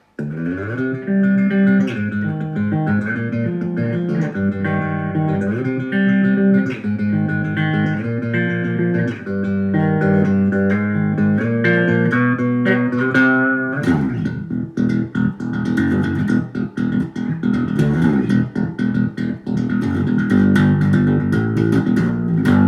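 Electric bass guitar playing a melodic line of distinct plucked notes; about 14 seconds in the playing turns into a busier passage of quick notes.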